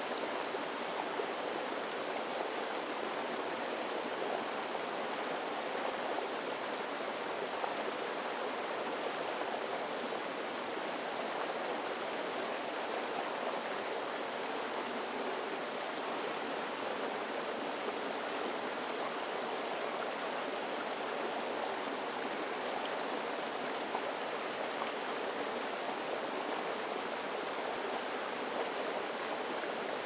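Shallow rocky stream flowing and splashing over small stones and low cascades, a steady, even water sound.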